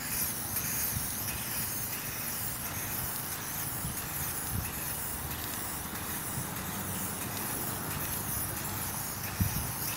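Aerosol spray can hissing steadily as it is sprayed over a paper picture.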